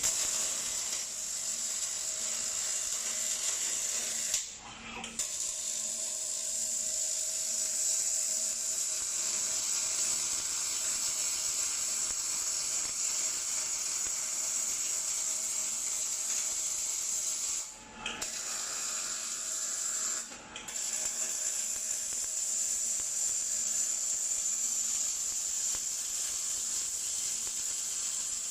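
Robotic arc welding: the welding arc hisses steadily. It cuts out briefly three times, about four seconds in and twice near eighteen to twenty seconds in, then strikes again.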